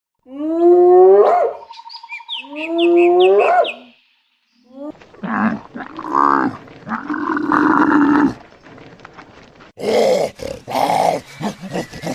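Calls of several different animals in turn: first two loud calls that rise in pitch, then after a short break other animals' calls and cries.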